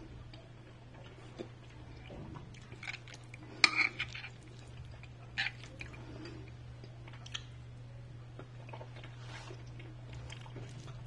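Metal spoon scraping and clinking against a ceramic plate as rice and bean stew are scooped up, with a few sharp clinks, the loudest a little under four seconds in. A steady low hum runs underneath.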